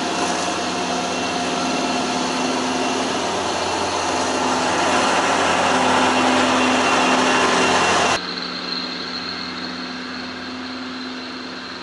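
Steady mechanical hum and hiss, slowly growing louder, then dropping abruptly to a quieter hum about eight seconds in.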